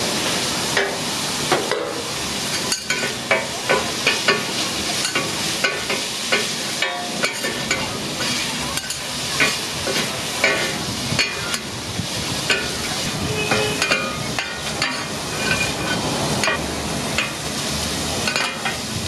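Beef cubes and onion sizzling on a flat-top griddle, with a metal spatula scraping and clacking against the plate as it turns and pushes them. The knocks come several times a second, at an uneven pace.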